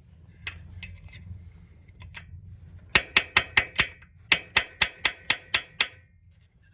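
Hammer striking metal part of a motorcycle being taken apart: a few light taps, then two runs of quick ringing blows, about five and then seven, roughly five a second.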